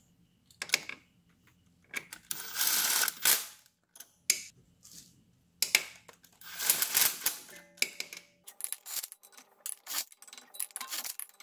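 Cordless impact wrench on its lowest setting driving in the 10 mm triple-square CV axle flange bolts in short bursts of about a second each, twice, followed by a run of sharp clicks near the end.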